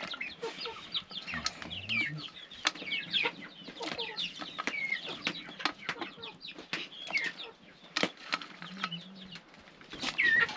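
Chickens clucking and chirping in short, quick calls, with scattered sharp knocks and clatter.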